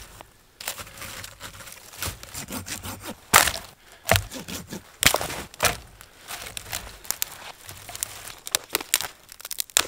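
Dry dead branches snapping and cracking in an irregular series as they are broken by hand for firewood. The sharpest snaps come about three and a half and five seconds in.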